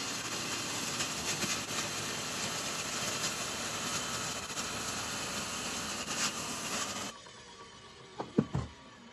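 A circular saw blade running and cutting a spinning wooden dowel blank, turned by a cordless drill in a saw-lathe jig: a loud, steady machine noise that stops about seven seconds in. A couple of brief clunks follow about a second later.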